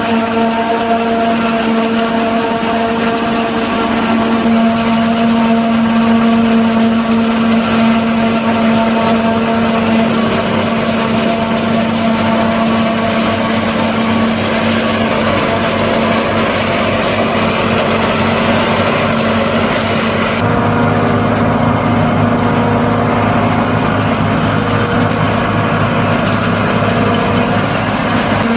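New Holland FX48 self-propelled forage harvester running under load, chopping standing maize through its Kemper row header: a loud, steady mechanical drone with constant whining tones over a hiss. About twenty seconds in the sound changes abruptly, losing much of its hiss, and runs on steadily.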